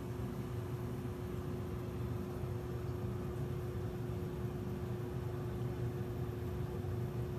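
Steady machine hum: one constant tone over a low rumble, with no change in level.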